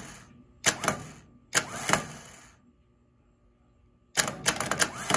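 Delco 29MT starter solenoid clacking in quick bursts as it is energized on the bench: two groups of sharp clicks early on, a short pause, then a fast run of clacks near the end. The solenoid is failing internally and only intermittently makes the electrical connection to the motor.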